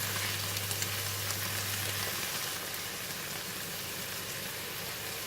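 Prawns and petai stir-fry sizzling in the pan over raised heat, a steady hiss, with a low hum underneath that stops about two seconds in.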